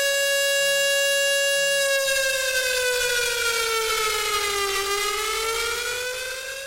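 Civil defence air-raid siren sounding an air-raid warning: a loud, steady wail that slowly sinks in pitch, rises again, and fades near the end.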